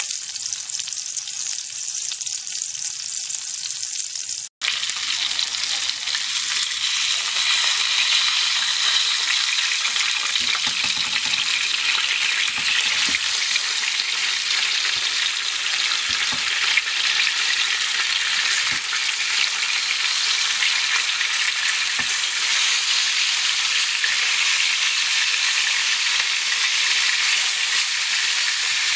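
Food sizzling in oil in a frying pan: sausages at first, then, after a brief break about four seconds in, pieces of skin-on fish frying, louder and steady with a few sharp pops.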